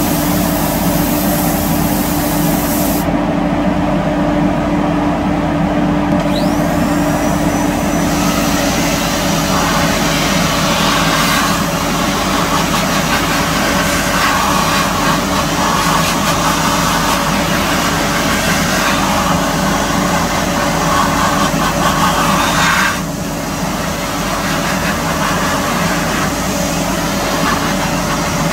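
Hiss of compressed-air spray guns applying spray-on chrome (silvering) to a bumper over-rider, over a steady drone of spray-booth equipment. The hiss cuts out about three seconds in, starts again about three seconds later, and stops a few seconds before the end while the drone carries on.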